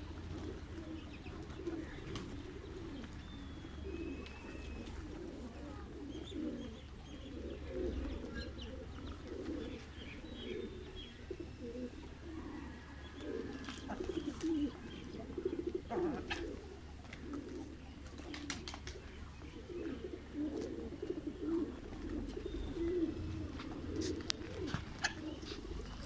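A flock of domestic pigeons cooing continuously in an overlapping low warble, with occasional short higher chirps. Scattered sharp clicks come through, mostly in the second half.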